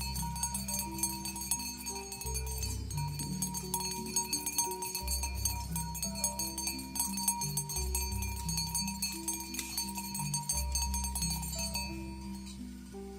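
Background music: a bass line of long held notes under a stepping melody, with fast high percussion that drops out near the end.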